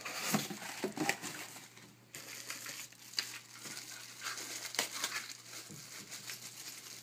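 Clear plastic packaging bag crinkling in the hands, with cardboard packaging being handled: irregular rustles and small clicks.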